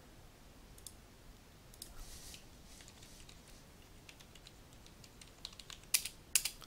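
Computer keyboard keys and mouse buttons clicking: soft scattered clicks at first, then a quick cluster of louder clicks near the end.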